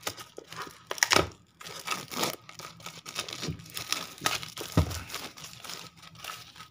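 Clear plastic shrink wrap being torn off a smartphone box and crinkled in the hands, an irregular run of crackles and rips.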